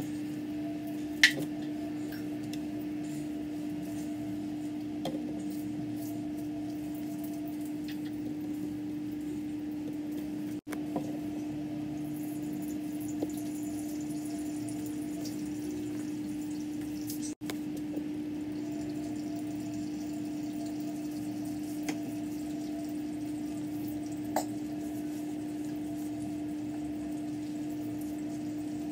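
Pour-over coffee brewing: soft trickling and dripping of hot water through coffee grounds in a paper filter, over a steady low hum. There is a sharp click about a second in, and the sound cuts out briefly twice.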